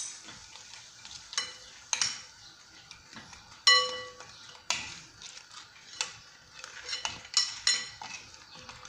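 Metal fork and spoon clinking and scraping against a glass plate as fried zlabia is turned in honey: a scattered series of sharp clinks, the loudest just under four seconds in, ringing briefly.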